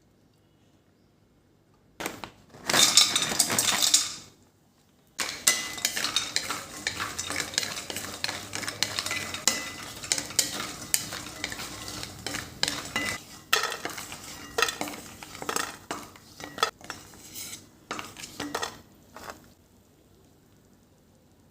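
A metal spoon clinking and scraping against a cooking pan as food is stirred, over a frying sizzle. The stirring starts about five seconds in, runs for about fourteen seconds, and stops near the end. It is preceded about two seconds in by a loud noisy burst lasting about two seconds.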